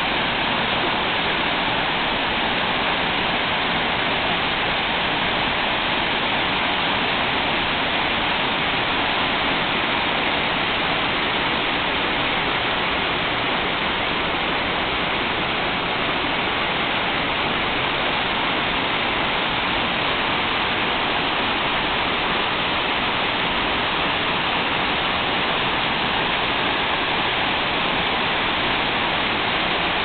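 Waterfall: water pouring over rocks and churning through the rapids below, a steady, even rush with no let-up.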